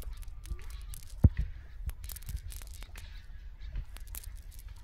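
Nylon fishing net rustling as hands pick through the mesh, with scattered small clicks and one thump about a second in.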